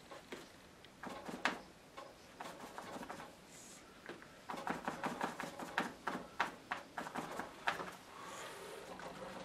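Small taps and clicks of painting materials being handled off the paper, with a quicker run of tapping in the middle.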